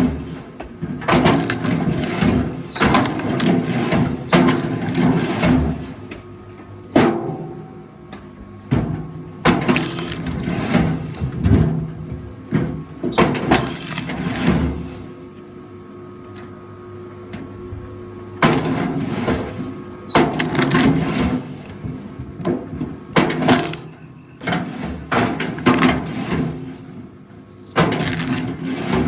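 Rail log splitter running with a steady low hum, while logs split in repeated loud stretches of cracking and splintering wood separated by quieter pauses.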